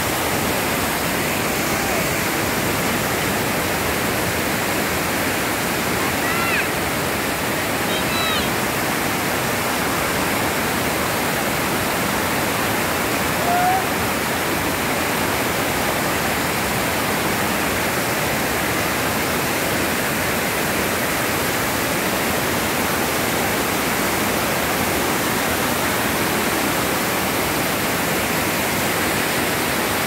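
Overflow water rushing steadily down a sloping concrete dam spillway, churning into white water.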